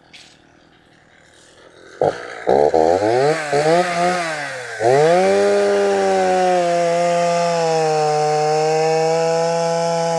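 Poulan 330Pro two-stroke chainsaw firing up about two seconds in and revving up and down a few times, then held at full throttle and cutting wood, its pitch sagging slightly under load. The chain is now mounted the right way round, so it cuts.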